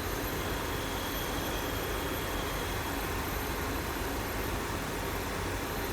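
Steady mechanical background noise of a locomotive workshop: an even hiss over a low hum, with no distinct hammer blows.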